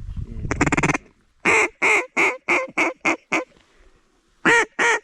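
Mallard-style duck call blown close by: a rapid rattling chuckle for about a second, then a run of seven quacks that get shorter and quicker. A second quicker run begins near the end.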